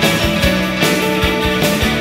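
Background music: an instrumental rock passage with a steady beat.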